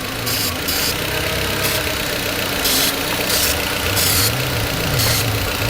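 Volkswagen Beetle engine idling steadily while an aerosol can of carburetor cleaner gives about seven short hissing sprays at the vacuum fittings. This is a test for vacuum leaks: the engine idles rough from a leak at the brake booster, and the idle speed rises when the fumes are drawn into a leak.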